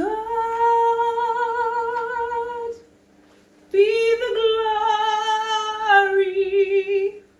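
A woman singing unaccompanied, holding two long notes with a short break between them, the second wavering near its end.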